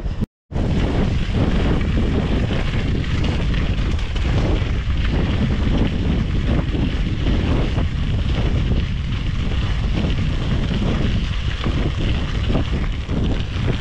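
Steady wind buffeting the microphone while riding a mountain bike, a dense low rumble with no let-up apart from a split-second silent gap near the start.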